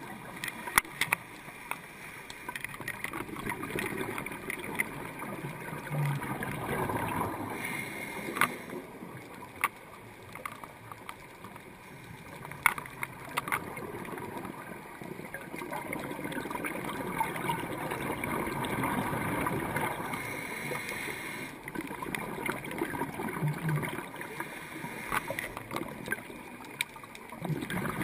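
Underwater sound picked up by a dive camera in its housing: a steady hiss and gurgle of water with scattered sharp clicks, swelling louder for a few seconds at a time.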